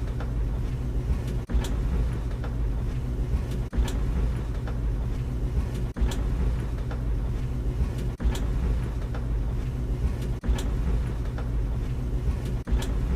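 Tumble dryer running with a steady low rumble, broken by a brief knock about every two seconds as the drum turns.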